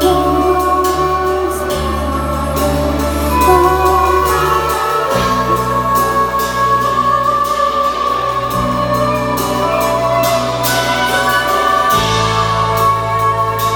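Live band music with a woman singing long held notes over a bass line that moves to a new note every few seconds, with cymbal hits throughout.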